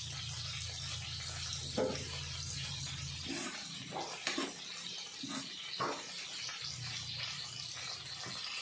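Stovetop cooking: a steady frying hiss with a metal spoon knocking and scraping against the pan several times as coriander leaves are stirred into the chicken masala.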